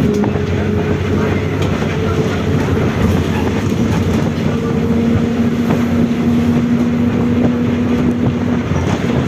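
Differential of a Volkswagen 17-230 OD city bus whining loudly as the bus drives, over engine and road noise. The whine holds a steady pitch that creeps up over the first few seconds as the bus gathers speed, then stays level.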